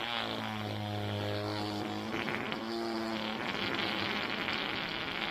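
A long fart sound effect: one drawn-out, steady, low buzzing blast that holds its pitch.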